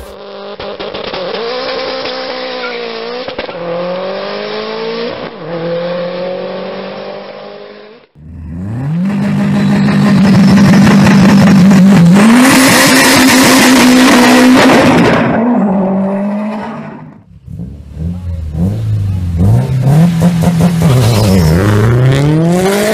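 Turbocharged flat-four engines of Subaru Impreza WRX/STI sedans revving hard in three separate clips. Revs are held at a steady, choppy pitch on a two-step launch limiter, and in the last clip they rise and fall repeatedly. The middle clip, from about 8 to 17 seconds in, is the loudest.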